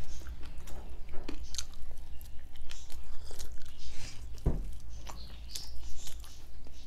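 Close-up mouth sounds of people chewing and biting steamed whole chicken: many short wet clicks and crackles, with one dull thump about four and a half seconds in.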